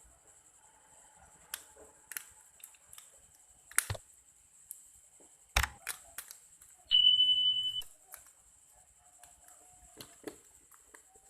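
Sharp clicks and taps of tools on a phone being taken apart, then one steady high beep lasting about a second from a multimeter's continuity buzzer.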